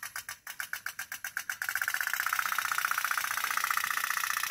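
Candle-heated pop-pop boat's little steam engine putt-putting: a rapid, even train of pops that about a second and a half in speeds up into a faster, buzzier rhythm.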